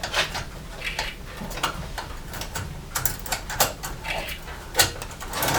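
Irregular clicks and light knocks of hand work on the truck's engine parts, with a few sharper knocks past the middle.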